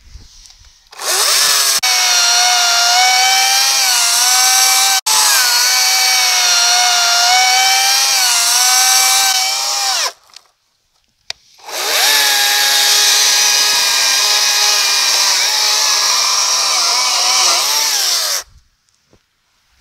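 Greenworks 40-volt cordless electric chainsaw cutting through a fallen tree trunk: the motor and chain whine, the pitch dipping and recovering as the chain loads in the wood. It runs in two long cuts, about nine and six seconds long, with a short pause between.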